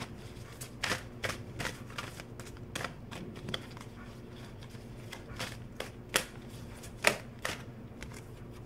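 A deck of oracle cards being shuffled by hand: irregular soft flicks and slaps of the cards, with a couple of sharper snaps in the second half, over a faint steady hum.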